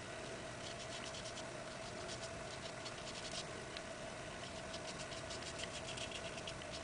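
Small paintbrush dabbing and scratching metallic paint onto a paper art-journal page: faint, irregular light scratches, with a steady faint hum beneath.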